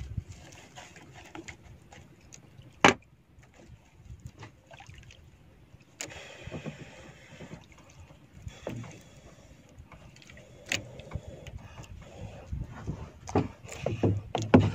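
Breathy puffs of someone blowing on a smouldering coconut husk to fan the ember into flame, with knocks from handling in a small boat: a sharp one about three seconds in and a cluster near the end.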